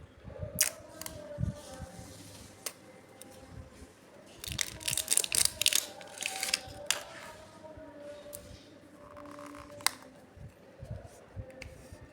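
Cosmetic cream packaging being handled during unboxing: scattered sharp clicks and taps, with a dense run of scratchy rustling about halfway through.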